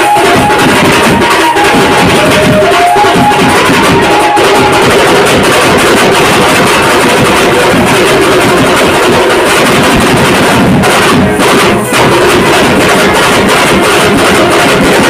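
Loud live band music dominated by fast drumming on several drums, with a high melody line held and stepping in pitch over the first few seconds.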